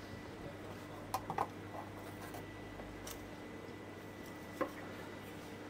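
Knife cutting through a cooked kokoreç roll (lamb intestines wrapped around offal) on a metal tray: a few faint crisp cuts and taps, a quick cluster about a second in and another single one near the end, over a faint steady hum.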